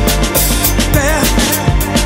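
Background music with a steady drum beat and a wavering melody line about a second in.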